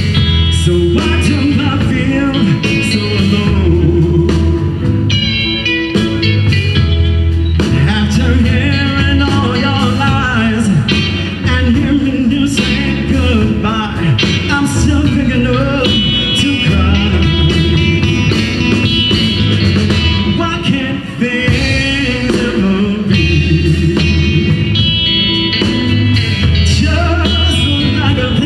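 Blues band playing live, with amplified harmonica, cupped against a microphone, playing the lead over electric guitar, bass, keyboard and drums with a steady beat.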